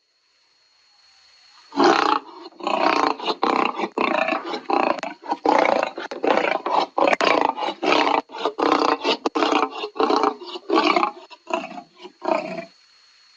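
Lion roaring: starting about two seconds in, a long series of rough grunting roars follows in quick succession. The roars become shorter and more widely spaced near the end.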